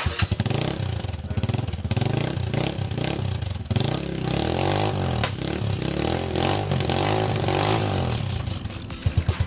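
Keeway Cafe Racer 152's single-cylinder engine running through a freshly fitted bullet exhaust pipe, its pitch rising and falling as it is revved repeatedly. Near the end it settles into an even, pulsing idle.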